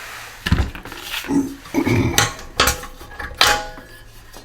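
Loose metal parts and hand tools being handled: several sharp metallic clinks with a few dull knocks between them, from the snowblower engine's muffler bolts and hardware coming off.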